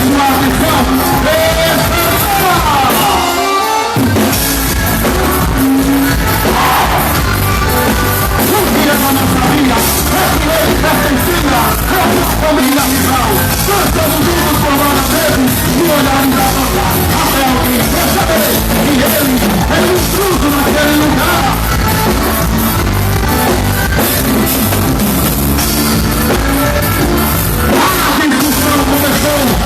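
Loud music with a singing voice. The low end drops out for a moment about three and a half seconds in.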